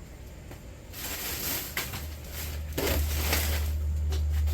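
Scrap wire and metal pieces being rummaged through and handled: rustling with a few sharp clicks, the loudest burst about three seconds in. A steady low rumble comes up from about two seconds in and holds.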